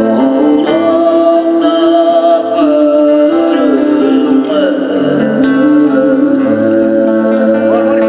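Tuvan ensemble playing: a sustained, drone-like singing voice with high whistling overtones over plucked string instruments, typical of Tuvan throat singing.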